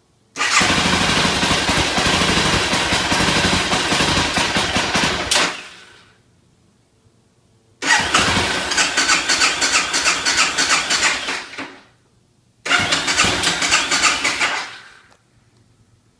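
BMW F650 motorcycle engine being cranked on its electric starter in three attempts: a long crank of about five seconds, a second of about four seconds and a shorter third. Each fades out without the engine settling into an idle, a sign of hard starting.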